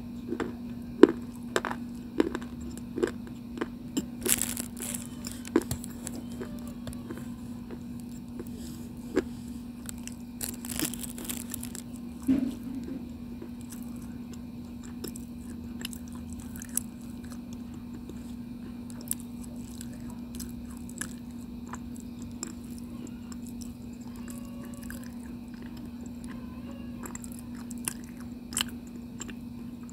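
Close-up crunching and chewing of chalky white slate stone: a run of sharp, crisp bites in the first few seconds, then slower, softer chewing with occasional crunches. A steady low hum runs underneath.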